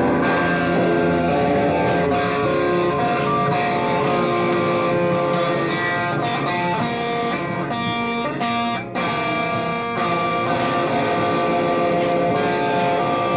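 Instrumental music led by guitar: plucked electric guitar notes and chords in a slowed-down, chopped-and-screwed song, with a short break just before 9 seconds in.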